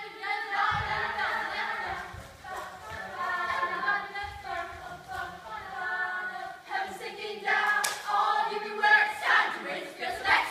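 A group of voices singing together, unaccompanied.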